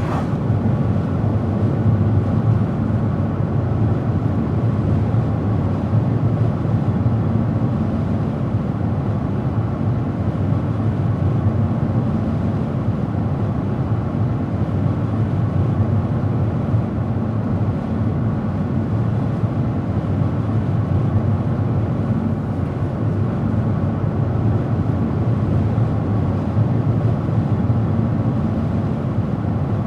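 Car driving at steady speed: an even, continuous rumble of tyre and engine noise.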